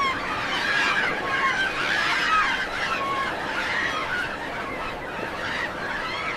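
A flock of seagulls calling, many overlapping short squawks and cries.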